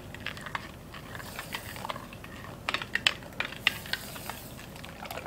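Metal spoon stirring milk in a glass bowl, clinking irregularly against the glass, with a cluster of clinks about three seconds in.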